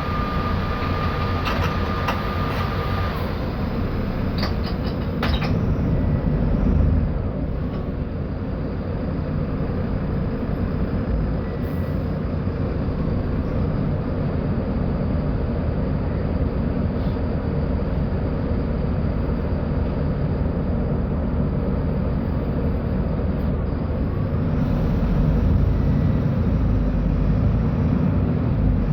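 Mercedes-Benz O-500U city bus running, its engine and driveline giving a steady low drone. A steady beep stops about three seconds in, and a few short clicks follow within the first five seconds.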